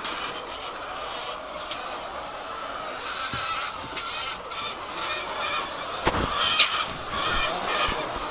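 A flock of laying hens clucking and calling together, with one louder squawk and a single knock about six seconds in.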